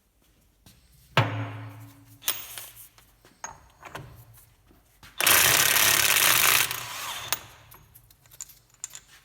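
DeWalt impact gun with a 38 mm socket undoing a Jensen Interceptor's rear hub nut. It spins briefly about a second in, then hammers loudly for about a second and a half midway as the nut breaks loose.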